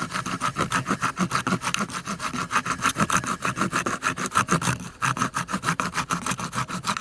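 Small metal grater-rasp of a Zippo SureFire multi-tool scraping fatwood into fine shavings, in quick even back-and-forth strokes about five a second, with a short break about five seconds in.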